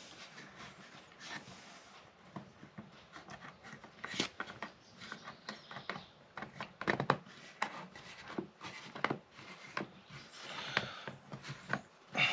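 Two wooden blocks being pushed together on Domino tenons and handled on a bench: wood rubbing and scraping against wood, with irregular light knocks as the joint seats.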